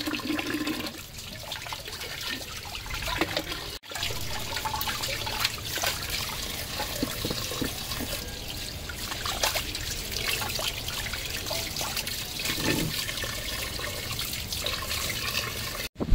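Running water pouring and trickling into a large aluminium pot of beef trotters, with small splashes. The sound cuts out for an instant about four seconds in.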